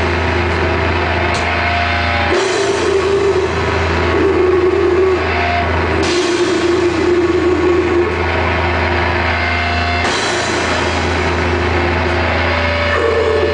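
A metal band playing live, heard from within the crowd: a slow, heavily distorted sludge/doom riff of held guitar and bass chords over drums, loud and dense. The chords change roughly every four seconds.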